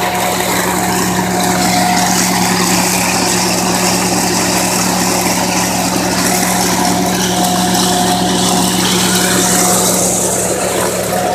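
Tractor-hitched vacuum hazelnut harvester and its tractor running steadily: a low hum with a higher whine that comes and goes, over a strong rushing of air through the suction hoses.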